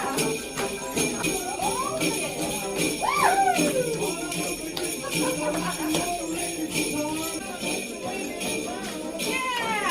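Handheld jingle bells shaken by a group, jingling in repeated strokes, with a few tones sliding up and down in pitch underneath.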